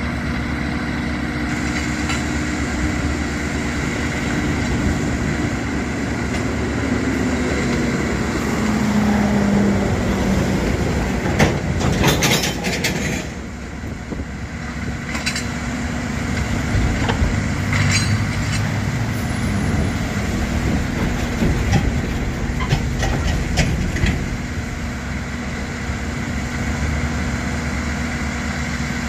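Diesel engines of a Case backhoe and track machinery running steadily, the engine note shifting as the arm works. Sharp metallic clanks come now and then as the backhoe's rail tongs handle old rail, the loudest cluster about twelve seconds in.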